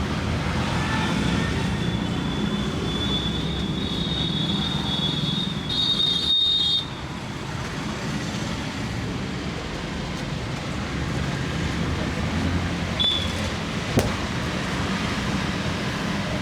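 Steady street traffic noise with a high thin tone that comes and goes. The tone is louder for about a second around six seconds in, and there is one sharp click near the end.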